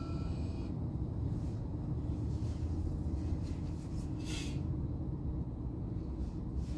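Steady low rumble of a car's engine and road noise heard from inside the cabin while driving, with a brief hiss about four seconds in.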